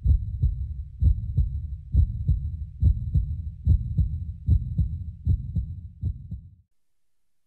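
Heartbeat sound effect: low double thumps in pairs, a little faster than once a second, fading out and stopping about a second before the end.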